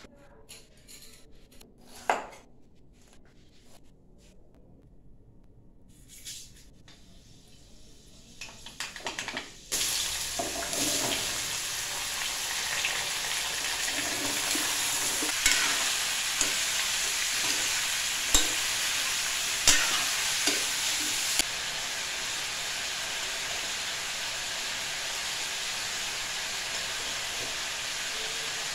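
A knife cutting raw papaya on a wooden chopping board, with a few sharp taps of the blade. About ten seconds in, a steady hiss starts suddenly from the wok on the gas stove, with a few clinks of papaya pieces and a spoon knocking on the aluminium wok.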